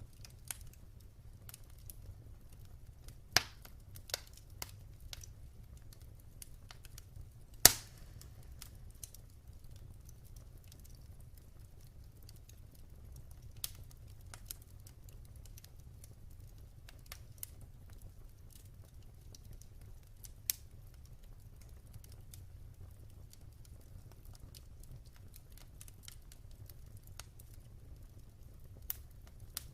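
Wood fire burning with a low steady rumble and scattered sharp crackles and pops, the loudest about three seconds in and about eight seconds in.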